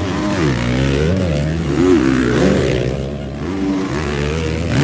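Motocross bikes racing past, their engines revving up and down again and again as the riders work the throttle and shift gears.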